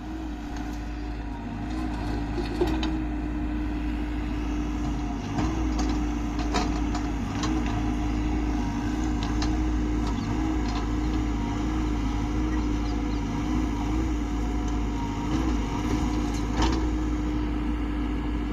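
JCB backhoe loader's diesel engine running steadily at one pitch while digging, with a few sharp clanks now and then.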